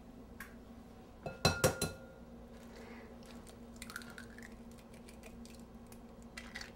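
An egg cracked against the rim of a glass bowl: a quick run of sharp taps and cracks about a second and a half in, then faint clicks of eggshell as the shell is pulled apart and the yolk is passed between the halves.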